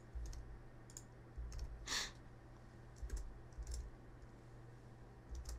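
Faint, scattered keystrokes on a computer keyboard, with one brief louder hiss about two seconds in and a steady low hum underneath.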